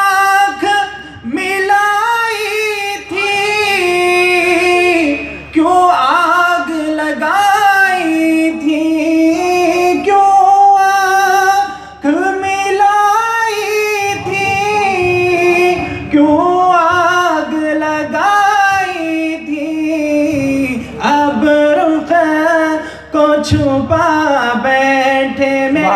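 A man singing a devotional naat unaccompanied through a microphone and loudspeakers. He holds long, ornamented notes in phrases a few seconds long, with short breaks for breath between them.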